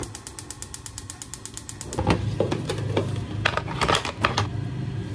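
Salad spinner: its ratchet clicks fast and evenly, about ten a second, then the basket spins with a steady whirr and some clattering knocks.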